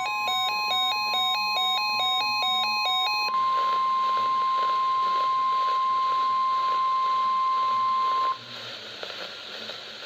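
Weather alert radios sounding their alarms, a rapid run of about four beeps a second, over the NOAA Weather Radio's long steady 1050 Hz warning alarm tone and radio static. The beeping stops about three seconds in; the steady tone carries on until it cuts off about eight seconds in, leaving only static hiss.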